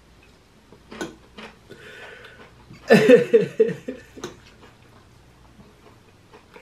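A man crying, with a short run of broken, catching sobs about three seconds in, and a few soft clicks around it.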